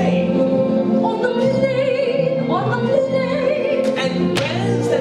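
Show-tune singing with instrumental accompaniment: a long note held at a steady pitch, with wavering voice lines above it and a few sharp percussive strikes near the end.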